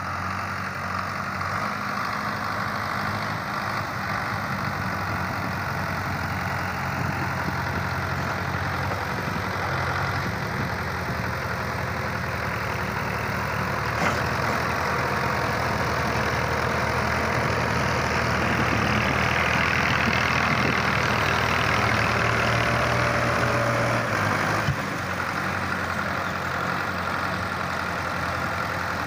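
Belarus tractor's diesel engine running under load while pulling a loaded tipping trailer through deep sand. The engine note grows a little louder through the middle, then drops abruptly about five seconds before the end.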